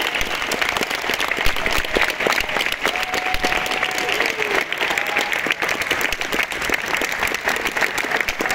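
Audience clapping steadily, a dense unbroken applause. A brief held call rises out of it about three seconds in.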